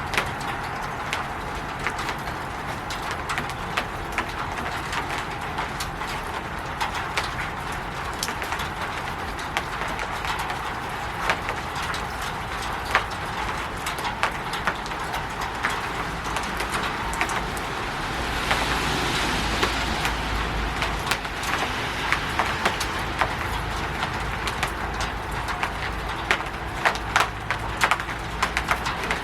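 Rain falling on a roof: a steady hiss of rain with many sharp drops tapping, and a swell of louder rushing about two-thirds of the way through.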